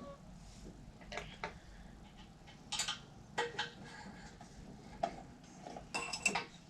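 Scattered light clicks and clinks of hand tools and metal parts being handled while taking apart an air compressor, with a quick cluster of clicks about six seconds in.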